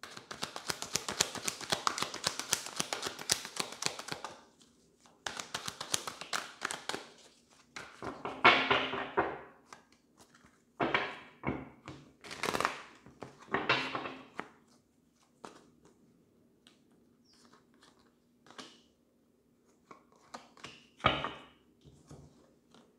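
Tarot cards being shuffled by hand, a rapid fluttering run for about four seconds and again briefly, then cards pulled from the deck and laid down on a cloth-covered table with several separate slaps and softer taps.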